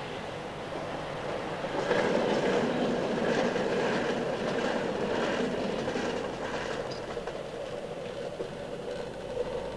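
A rail vehicle rolling past, its wheels clattering over the rails. It gets louder about two seconds in and fades slowly after the middle.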